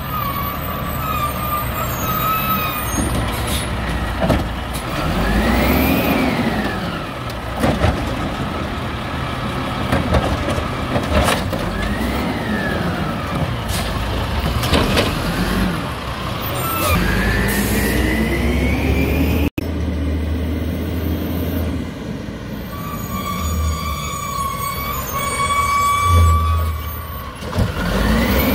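WhiteGMC Amrep Octo automated side loader garbage truck working a curbside pickup: its diesel engine repeatedly revs up and falls back as it drives the hydraulic side arm, with air-brake hissing and clanks from the arm and carts.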